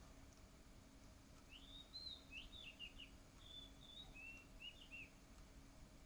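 A single bird singing one phrase of quick, slurred whistled notes before dawn, starting about a second and a half in and ending about five seconds in. It is faint over a steady low background hum.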